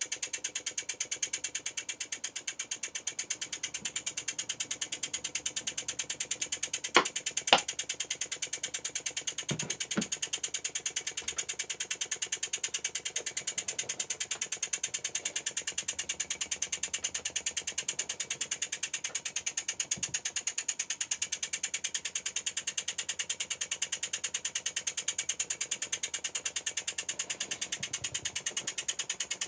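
Wig-Wag single-acting wobbler (oscillating-cylinder) model steam engine running fast, giving a rapid, even ticking beat. A few sharper clicks stand out about seven to ten seconds in.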